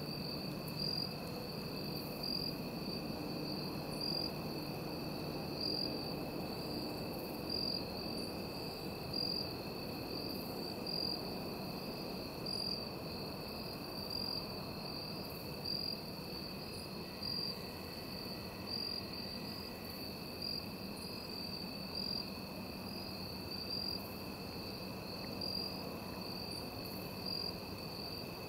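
Evening insect chorus of crickets: a steady high trill with a brighter pulse recurring about every one and a half to two seconds, and a second, lower steady trill beneath it.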